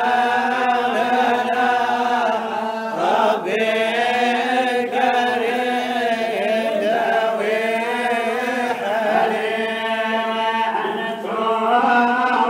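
Sufi samaa chant: a solo male voice sings a slow, ornamented melody unaccompanied into a microphone, over a steady drone note held beneath it.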